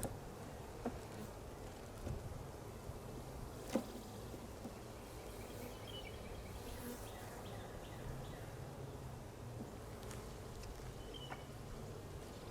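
Honeybees buzzing in a steady low hum from an open hive. A few light clicks sound over it, the sharpest a little under four seconds in.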